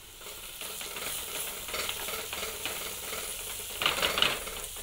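Sliced onions and green chillies sizzling in hot coconut oil in a pan while a spatula stirs and scrapes them; the scraping gets louder about four seconds in.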